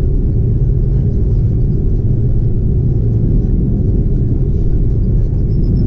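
Airbus A330 jet engines and airframe heard from inside the cabin while the airliner taxis: a steady, low rumble.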